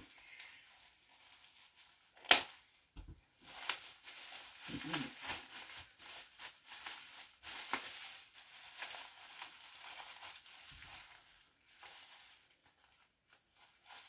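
Plastic bubble wrap being handled and pulled apart, crinkling and rustling in irregular bursts, with one sharp crack about two seconds in.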